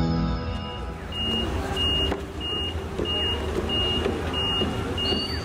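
An electronic warning beeper sounds short, even high beeps, about one and a half a second, over a steady low engine rumble. Background music fades out within the first second.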